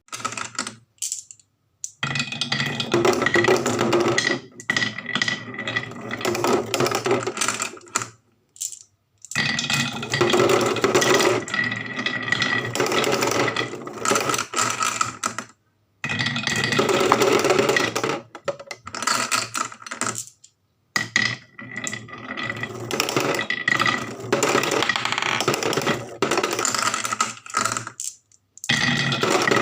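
Marbles rattling and clacking as they run down a wooden marble run track, a continuous dense clatter in stretches of several seconds, broken four or five times by sudden short silences.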